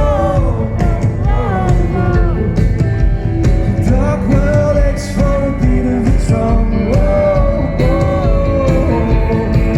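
Live rock band playing with a sung vocal melody over it, drum hits throughout.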